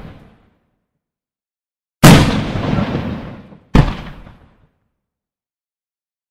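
Two firework bursts about a second and three quarters apart, each a sharp, loud bang that dies away over about a second.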